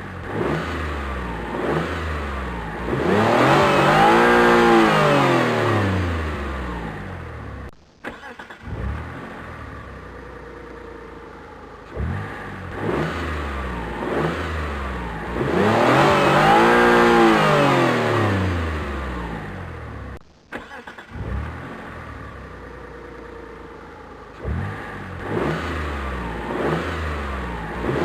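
Car engine starting, idling, then revved once, rising in pitch and falling back, before it cuts off abruptly. The same start-rev-stop cycle repeats about every twelve seconds, three times.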